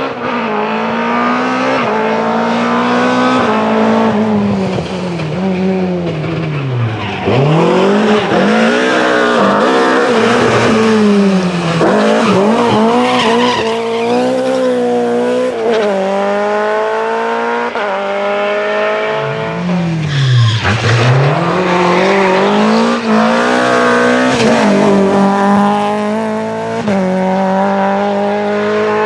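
BMW rally car engine at full throttle, its pitch climbing through the gears with a sharp drop at each upshift. Twice the revs sweep right down as the car slows, then it pulls away hard again.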